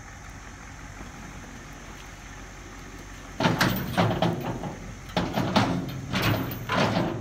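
Large oak logs sliding off a raised steel dump-truck bed and crashing onto the ground, in several loud bursts with a short lull between them, starting about three seconds in after a low steady hum.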